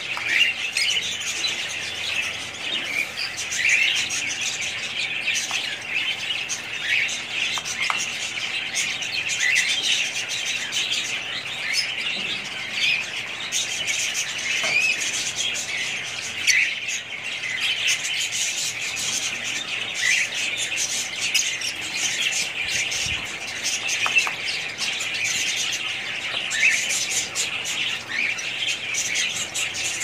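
Budgerigars chattering, a continuous stream of overlapping chirps and squawks.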